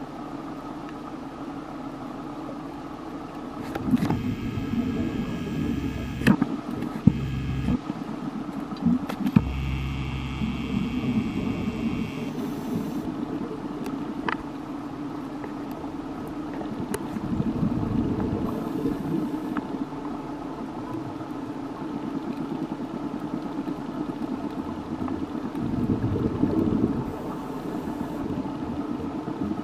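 Underwater ambience picked up through a camera housing: a steady low drone with scattered sharp clicks and a few swells in level, the loudest about 4 seconds in and again near the end.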